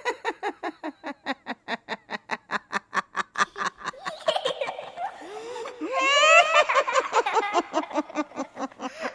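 Drawn-out laughter: a long run of rapid 'ha-ha' pulses, about four to five a second, sinking in pitch, then turning into looser, higher giggling about halfway through.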